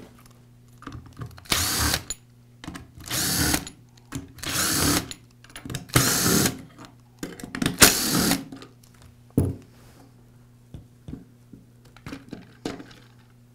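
Powered screwdriver with a Torx bit backing out the screws of a cordless drill's plastic clamshell housing, in five short runs, each spinning up and winding down. A few light clicks of handling follow near the end.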